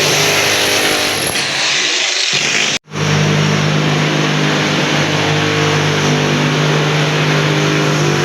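Electric drill machine boring holes into a concrete apartment wall: a loud, steady motor hum with harsh grinding noise, which stops abruptly about three seconds in and starts again at once.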